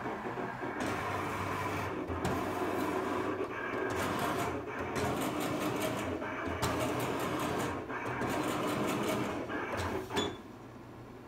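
Cutting plotter running: its carriage motors whirr in short runs, stopping and changing direction, as its blade cuts a family-crest design into a stencil sheet. The run ends with a sharp click about ten seconds in, leaving a quieter steady hum.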